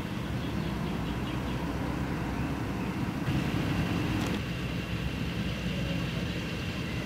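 Fire engine's diesel engine running with a steady low rumble. About three seconds in the sound shifts and briefly gets louder, and a steady high tone joins it.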